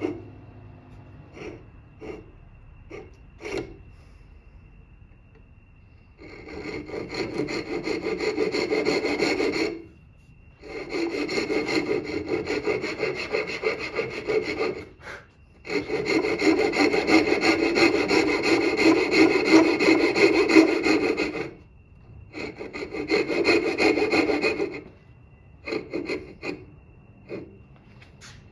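Wood being worked by a tool scraping across it: four long spells of steady rasping, with a few short knocks and taps in the pauses between them.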